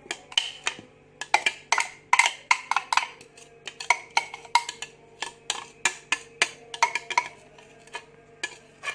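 A spoon knocking and scraping against a bowl in quick, irregular strikes, about two to three a second, as grated onion and its juice are spooned onto sliced meat.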